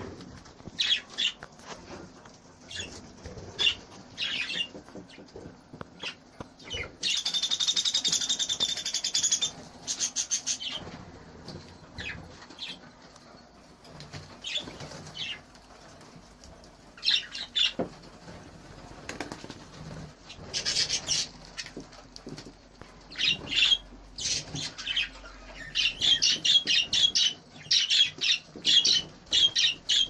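Budgerigars chirping and chattering in short, high-pitched bursts, with wings fluttering. A longer warbling call comes about seven to nine seconds in, and the chirping grows dense over the last ten seconds.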